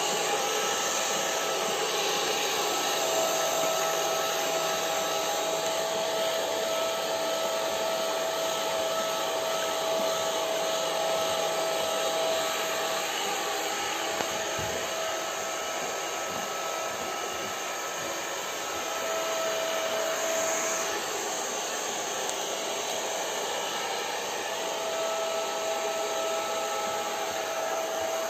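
Handheld electric hair dryer running steadily, a constant rush of blown air with a thin steady whine in it that fades for a few seconds midway.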